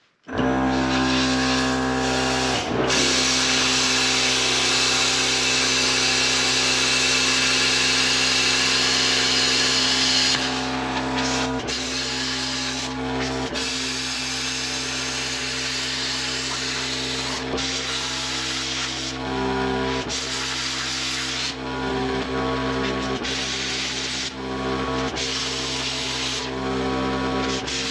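Plasma cutter cutting steel: a loud, hissing cut that starts abruptly, over the steady hum of the machine running. After about ten seconds the cut stops and restarts several times in short runs as the pieces of the hitch are cut away.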